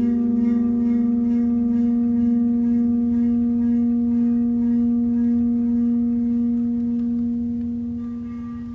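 Large round metal plate made to sing by rubbing at its rim, giving a steady low tone with ringing overtones and a slow pulsing beat; sand on its surface is held in a star-shaped vibration pattern. The tone fades near the end.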